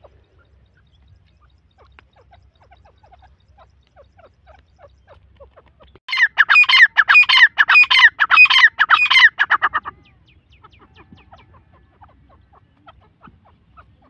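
Grey francolin (teetar) calling: a loud, rapid series of repeated harsh notes, about three a second, starting about six seconds in and lasting about four seconds. Faint short calls before and after.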